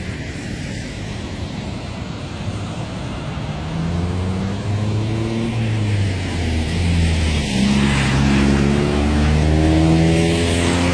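City street traffic: a steady rumble of vehicles, with a large engine such as a bus's coming in about a third of the way through and rising in pitch as it accelerates near the end.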